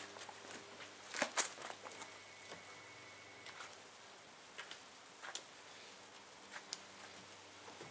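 Faint, irregular taps and soft rustles of hand car washing: a soapy wash mitt wiped over a wet windshield and hood, with footsteps on the driveway. The loudest taps come about a second in.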